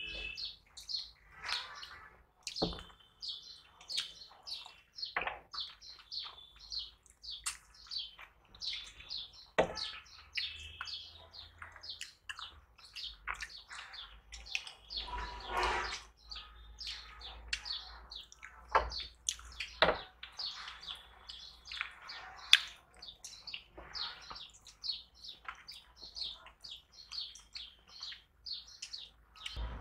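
Close-miked eating sounds from two people eating fish curry and rice with their hands: many short wet smacks of chewing and lip-smacking, with fingers squishing the food.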